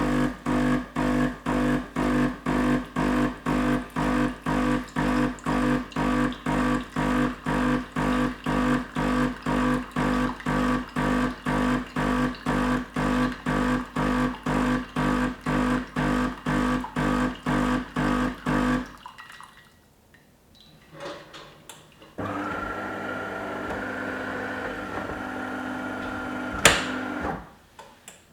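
De'Longhi Magnifica ESAM4200 bean-to-cup coffee machine running its warm-up heating cycle. For most of the time it hums in even pulses, about two and a half a second. After a short pause a steadier, higher hum runs for several seconds, with one sharp click near the end.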